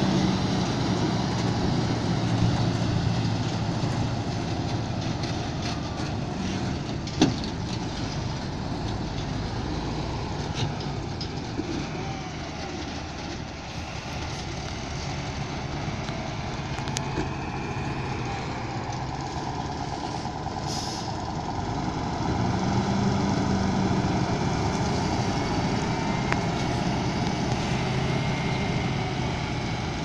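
Heavy diesel dump trucks running and driving across a dirt construction site, the engine sound swelling as a truck passes close near the start and again about 22 seconds in. A sharp knock about seven seconds in, and a short hiss a little after 20 seconds.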